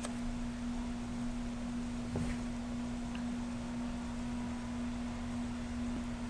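A steady low hum, one unchanging tone, over faint background hiss, with a faint click about two seconds in.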